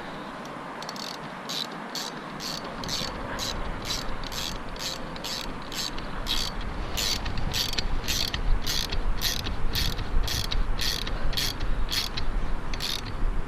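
Ratchet wrench being worked in steady back-and-forth strokes, a sharp ratcheting click about twice a second, growing louder about halfway through.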